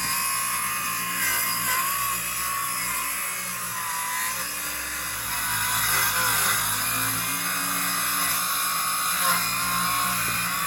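Circular saw cutting slowly through T1-11 plywood siding, a continuous cut with the motor's pitch wavering up and down as it bogs under load.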